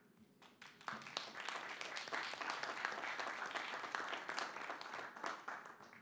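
Audience applauding: a small group clapping that starts about a second in, holds steady, and dies away near the end.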